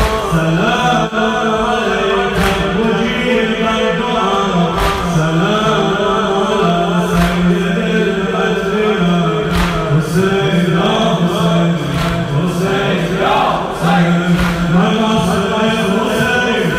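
A male reciter chanting an Arabic noha (latmiya lament) with the congregation chanting along. A sharp slap lands about every two and a half seconds: the mourners beating their chests in matam.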